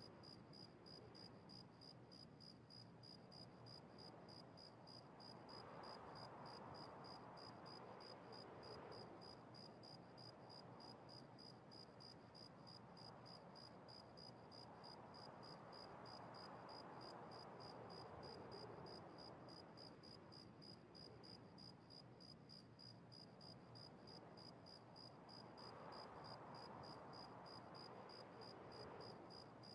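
Near silence: faint room hiss that swells and fades slowly every ten seconds or so, with a faint high-pitched tick repeating about twice a second.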